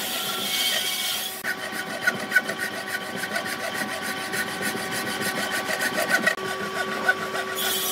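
Hand sawing through a dry tree stump with a wooden frame saw: quick back-and-forth strokes rasping through the wood, with the texture sharpening about a second and a half in.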